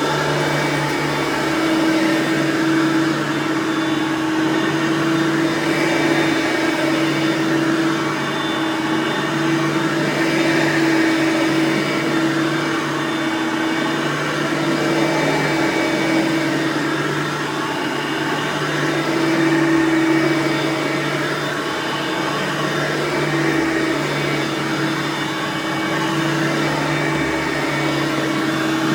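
Hoover Platinum Collection UH30010 lightweight bagged upright vacuum running steadily on high speed. Its 5.5-amp direct-air motor gives a constant whine.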